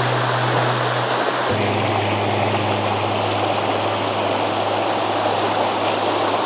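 Shallow mountain stream rushing over rocks and cobbles, a steady wash of water noise. Background music with low held notes sits underneath, its bass note changing about a second and a half in.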